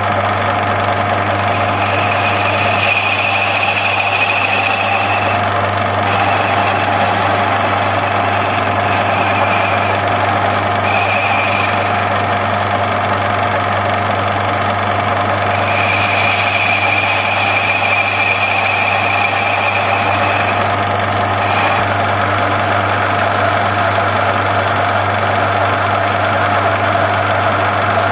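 Lathe running steadily with a deep motor hum while the cutter turns a ball on the workpiece; a higher-pitched cutting whine comes and goes in several stretches a few seconds long.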